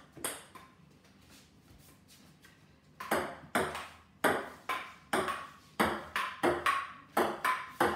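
A table tennis ball hitting rubber-faced paddles and a wooden dining-table top: one hit just after the start, a pause of about two and a half seconds, then a quick back-and-forth rally of sharp ticks, about three a second, from about three seconds in.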